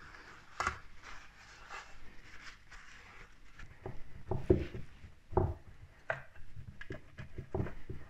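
Paper towel rubbing butter around the cups of a metal muffin tin, with one knock about half a second in. From about four seconds in, dull thumps and taps as fingers press rolled puff-pastry spirals down into the buttered tin's cups.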